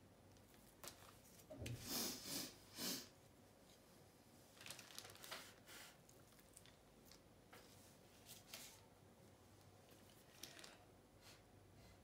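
Quiet room with a few short rustling, crinkling handling noises of painting tools being worked over a plastic-covered table. The loudest come in a quick cluster about two to three seconds in, with softer ones around five seconds and near the end.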